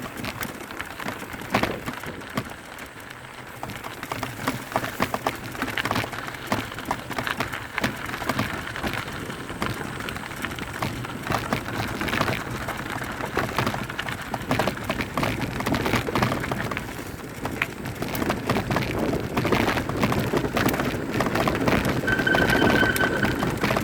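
Mountain bike descending a rough trail: tyres rolling over dirt and rocks with constant irregular rattling and clicking of the bike. A short high squeal sounds near the end.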